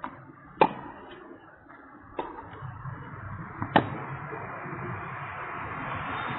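Tennis ball struck by rackets: two loud, sharp hits about three seconds apart, with fainter knocks between them. A steady rushing noise builds up through the second half.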